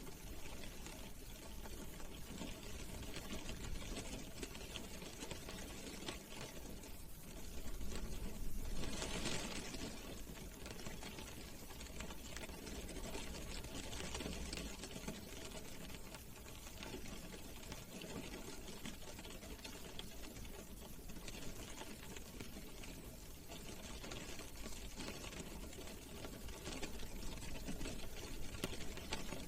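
Rain drumming on a car's roof and glass, heard from inside the car: a dense, fast patter of drops that swells louder about eight seconds in and again near the end.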